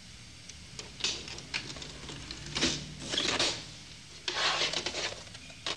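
Short bursts of rustling and clicking, about half a dozen, with quieter stretches between them.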